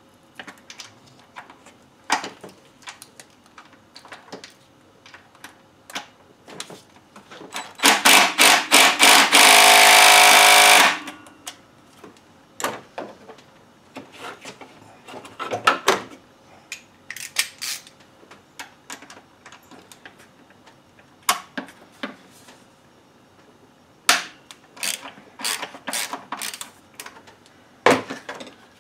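Ratchet and socket clicking while intake manifold bolts are loosened, with scattered single clicks and short runs. About eight seconds in comes a loud run of fast ratcheting that lasts about three seconds, and more quick bursts of clicking follow near the end.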